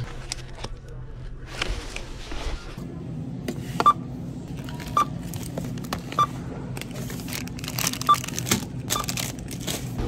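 Checkout barcode scanner beeping as items are scanned, five short identical beeps about a second apart, with plastic packaging crinkling and rustling.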